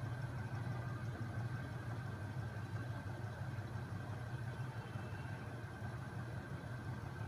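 Homemade magnet crankshaft machine with its heavy flywheel spinning, driven by a small 12-volt electric motor, running with a steady low hum and a faint whine.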